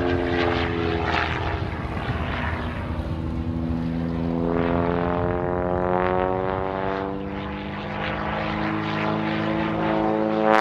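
Pitts Special aerobatic biplane's piston engine and propeller droning in continuous flight overhead. The pitch sags through the middle and climbs again toward the end, growing louder as it does.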